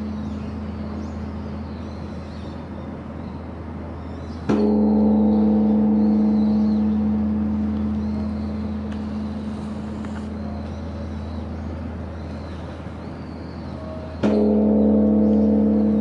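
Large Korean Buddhist temple bell (beomjong) struck twice with a wooden log striker, about ten seconds apart. Each stroke gives a deep, sustained ring of several tones that slowly fades, and the previous stroke is still ringing out at the start.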